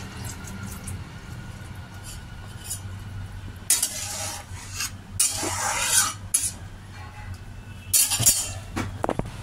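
A spatula stirring and scraping hog plum chutney as it simmers in a kadai, mixing in rasgulla syrup. It comes in a few rough strokes about four, five to six, and eight seconds in, over a steady low hum.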